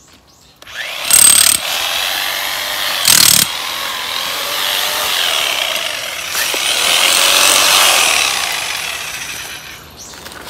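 Corded electric hammer with a chisel bit, hammering into soil and roots to dig out a bamboo shoot. It starts about a second in with two short, very loud blasts, then runs steadily for several seconds and dies away near the end.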